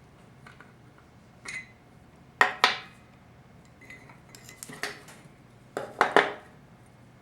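Small metal parts and tools of a 4L60E transmission pump clinking and tapping as they are handled: a handful of sharp metallic clinks, the loudest coming in close pairs about two and a half seconds in and again about six seconds in.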